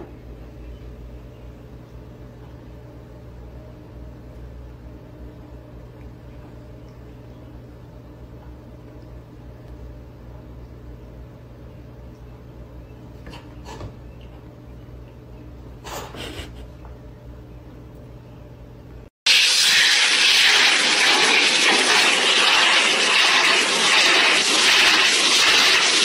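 A low steady hum with a couple of brief knocks, then, about two-thirds of the way in, a sudden switch to the loud, steady rush of air from a pet grooming blow dryer.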